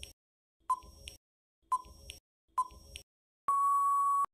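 Quiz countdown timer sound effect: a short beeping tick about once a second, then a long steady beep near the end as time runs out.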